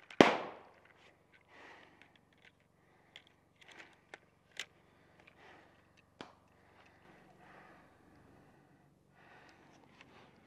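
A single loud, sharp shot from a magazine-fed paintball marker just after the start, then a few faint scattered clicks and snaps.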